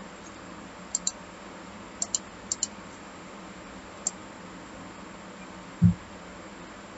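Computer mouse button clicks, each heard as a press and release close together: three quick pairs and then a single click, over a steady low hiss. A short low thump comes near the end.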